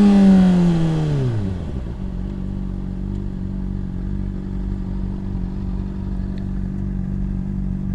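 Motorcycle engine coming off the throttle, its revs falling over the first two seconds as the bike slows, then idling steadily. A rushing hiss fades as the bike slows.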